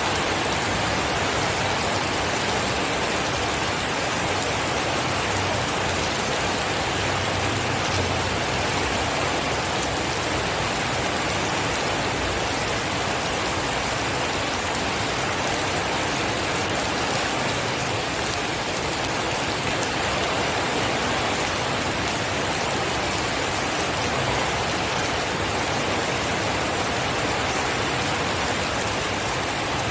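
Steady heavy rain falling, an even wash of drops with no thunder.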